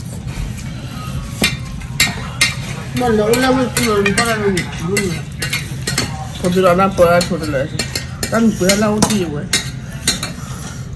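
Spoon stirring and scraping in a cooking pot over a sizzle of frying food, with repeated sharp clinks of utensil against the pot. A voice-like sound comes in three times in the middle.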